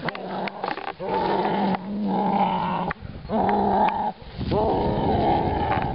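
Growling, repeated about five times, each growl held for roughly a second with short breaks between.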